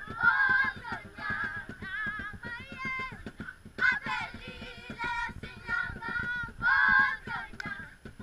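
A group of girls singing together without instruments, several voices at once in a rising and falling tune, with short pauses between phrases.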